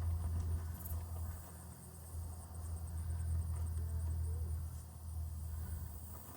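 Insects trilling in a fast, even pulse over a steady low rumble that fades near the end.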